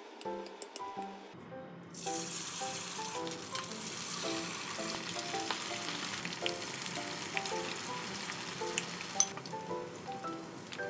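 Corn kakiage batter deep-frying in hot oil in a frying pan: a dense sizzling and crackling that starts about two seconds in as the batter goes into the oil. There is one sharp click near nine seconds.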